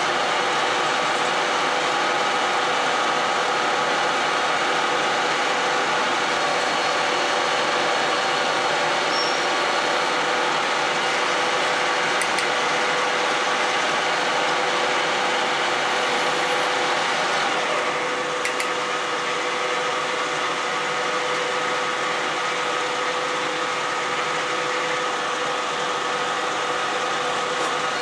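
Manual metal lathe running with a steady whine while turning a white Ertalon (nylon) bushing. About two-thirds of the way in, the sound drops slightly and loses its highest part.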